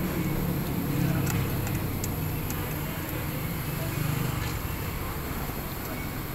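A road vehicle's engine running close by and slowly fading away over steady traffic noise, with a few faint clicks of cutlery on a steel tray.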